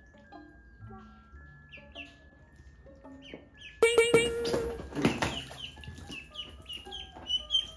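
Ducklings peeping, with short high calls that fall in pitch, over soft background music. About four seconds in comes a louder, noisy burst lasting about a second.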